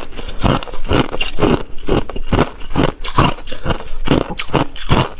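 Mouthful of ice being chewed: crisp crunching and crackling at about three crunches a second.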